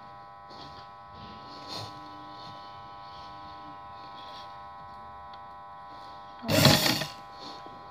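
Electric sewing machine motor humming steadily while fabric is fed under the needle. A loud burst of noise about half a second long comes near the end.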